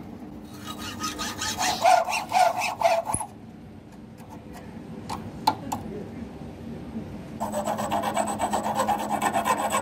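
Hacksaw cutting a carbon fiber drone frame arm clamped in a vise, in rhythmic strokes for the first three seconds. After a quieter stretch with two sharp clicks, a hand file rasps back and forth on the carbon edge in fast, even strokes from about seven seconds in.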